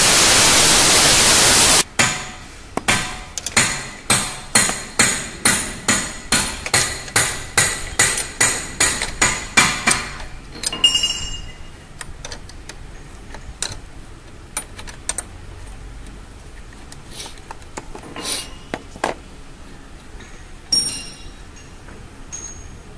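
Air hissing out of a Mercedes ML350 Airmatic front air strut through its disconnected air line, cutting off suddenly about two seconds in. Then a run of sharp metal-on-metal taps, about two a second for some eight seconds, each with a short ringing note, followed by scattered clinks of a wrench on the strut's top mount.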